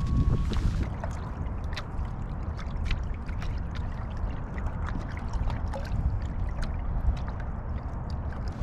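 Small water splashes and trickles lapping irregularly against a kayak's hull, over a steady low wind rumble on the microphone.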